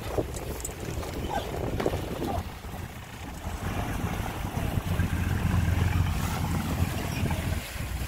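Fishing boat's engine running, with wind buffeting the microphone: a steady low rumble that swells about halfway through and falls away near the end.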